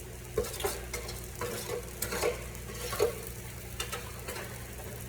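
Peppers sizzling in a frying pan on a hot burner, with a utensil scraping and knocking against the pan about eight times.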